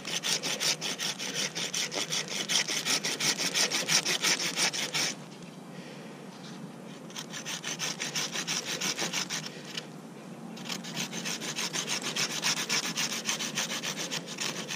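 Silky F-180 folding pull saw cutting a notch into a wooden stick, the teeth rasping through the wood in quick back-and-forth strokes, about four a second. The sawing comes in three bouts, easing off briefly about five seconds in and again about ten seconds in.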